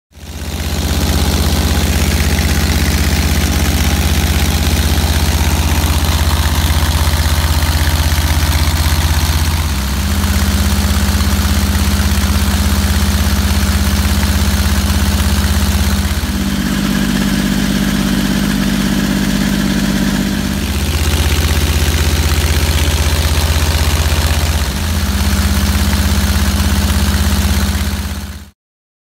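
A custom motorcycle's engine runs under load on a chassis dynamometer, held at steady road speeds. The note jumps to a new steady pitch four times as the bike is taken through the gears at different speeds. This is a functional test run of a finished bike.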